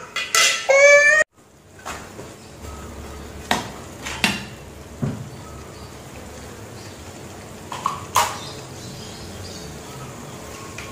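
Metal spatula and spoon clinking against a stainless frying pan about five times, in two clusters a few seconds apart. Under them is a faint, steady noise from the pan of oncom and leunca cooking down in its liquid.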